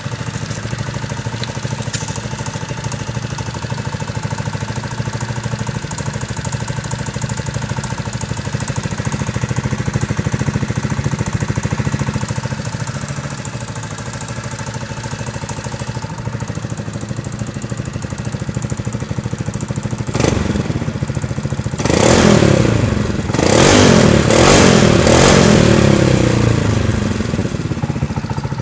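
Yamaha XMAX 250 scooter's single-cylinder four-stroke engine through an aftermarket Yasuni exhaust with catalytic converter, idling steadily. Near the end it is blipped once, then revved twice, the second rev held longer, before the revs fall back to idle.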